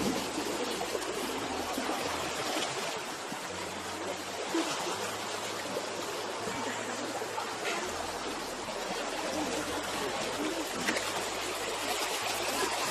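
River water flowing steadily, a continuous rush of running water.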